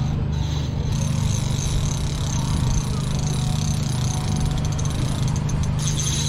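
Boat engine running at a steady, even drone.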